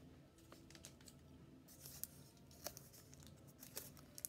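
Faint food-handling and eating sounds: hands picking through stewed conch and rice in a foil pan, with a few short, sharp clicks and a brief soft rustle.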